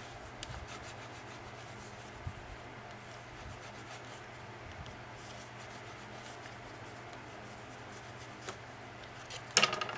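Bone folder rubbing over folded paper, creasing and burnishing it flat: a steady low scraping, with a brief, much louder handling noise near the end.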